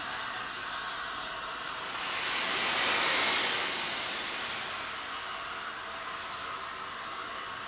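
Steam hissing from the LNER A3 Pacific steam locomotive Flying Scotsman as it vents a thick cloud of steam. The hiss swells to its loudest about three seconds in, then eases back to a steady hiss.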